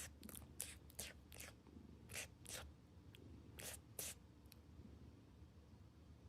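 Faint wet slurping sounds: about a dozen short smacks in an irregular run over the first four and a half seconds, then they stop.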